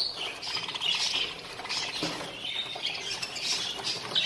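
A cage of budgerigars chattering, with irregular squawks and chirps.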